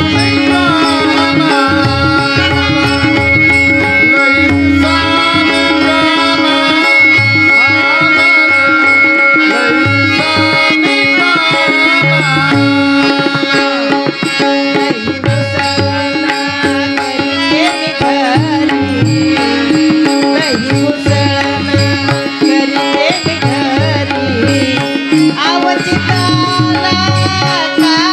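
Instrumental interlude of a Marathi devotional folk song: a gliding melodic lead over a steady drone, with hand drums keeping the rhythm.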